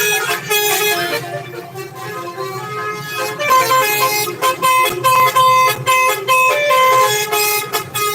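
Indonesian bus 'telolet' multi-tone horn (Basuri) playing a quick tune of short stepped notes. It turns softer and sparser between about one and three seconds in, then plays loud again.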